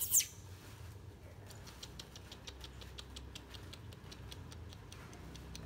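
A baby macaque gives a short, shrill squeal that drops in pitch at the start. It is followed by a run of faint, rapid clicks, about five a second.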